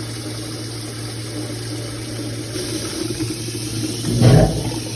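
Hot brewed tea being poured from a pot into a pitcher: a steady pour, with a louder thud about four seconds in.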